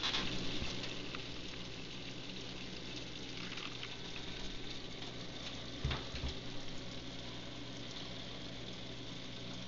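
Chili simmering in a saucepan on an electric stove, a steady bubbling hiss, with hot dogs frying in a pan beside it. A couple of soft knocks come about six seconds in.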